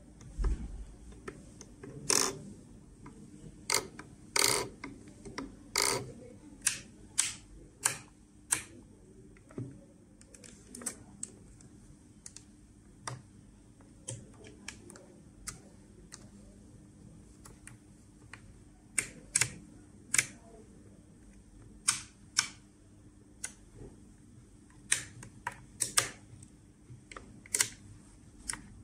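Toggle switches and control sticks of a RadioLink AT9S Pro radio transmitter being flicked and pushed to their limits: an irregular run of sharp clicks, some louder than others.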